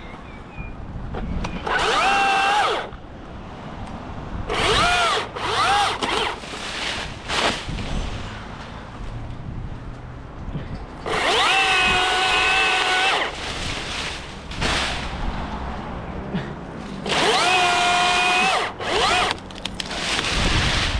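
Battery-powered chainsaw run in repeated bursts: each time the motor spins up fast to a steady high whine, holds for under a second to about two seconds, then cuts off, about six times.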